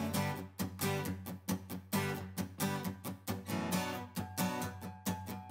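Background music: an acoustic guitar strumming chords in a steady, even rhythm.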